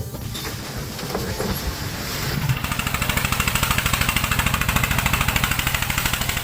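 An engine running, at first rough and uneven, then louder from about two and a half seconds in with a rapid, even pulse.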